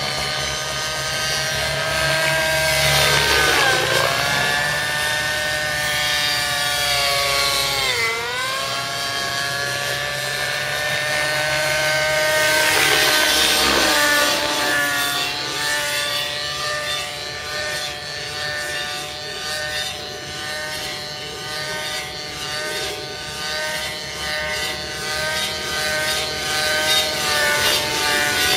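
Outrage Velocity 50 radio-controlled helicopter flying aerobatics: a steady whine with many overtones from its engine and rotor. The pitch swoops down sharply three times, about four, eight and thirteen seconds in, then flutters rapidly in the later part as it manoeuvres.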